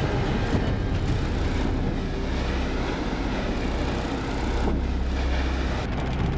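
A loud, steady deep rumble with a noisy rush over it, the kind of sound laid under disaster footage.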